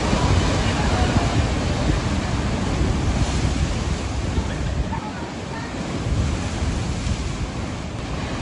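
Rough sea surf surging into a narrow rocky inlet and breaking against the cliff walls: a continuous rushing wash of water, a little louder in the first couple of seconds.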